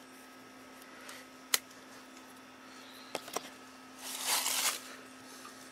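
Electrical tape being pulled off its roll, a short ripping sound about four seconds in, after a few light clicks of handling.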